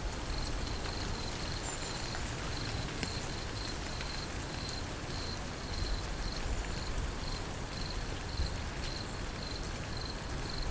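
Steady rain falling, with an insect chirping in short high-pitched pulses, a few a second, and scattered faint ticks of drops.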